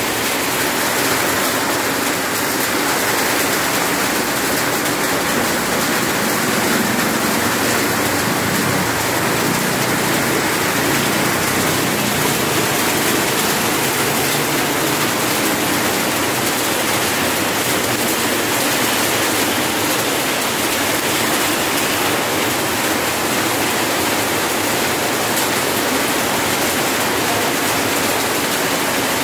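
Heavy rain falling in a steady, loud hiss that does not let up.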